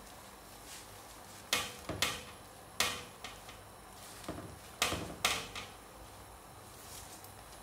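Metal spoon knocking and scraping against a cooking pan while pushing sweet potato leaves down into a simmering soup: a series of sharp knocks, about five loud ones, some with a short metallic ring.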